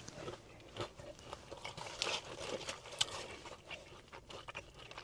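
Close-miked chewing of food, with small crunchy bites and wet mouth clicks; the busiest chewing comes about two seconds in, with a sharp click about a second later.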